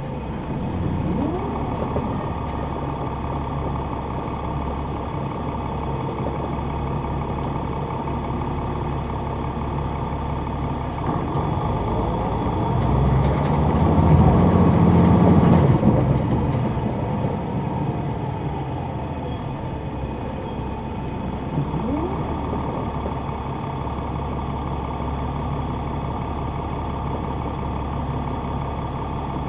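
Caterpillar C9 diesel engine of an articulated city bus, heard from the rear seats inside the cabin. It runs steadily, and its pitch rises briefly near the start and again about two-thirds through. Around the middle it works noticeably louder for a few seconds, then eases back.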